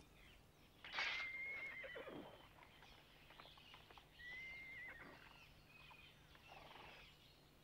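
A horse whinnying twice, once about a second in and again about four seconds in, each call a high, slightly wavering note.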